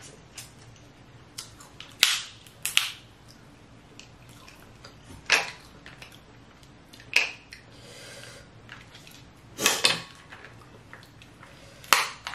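Snow crab leg shells being snapped and cracked apart by hand: about six sharp cracks, spread a second or two apart.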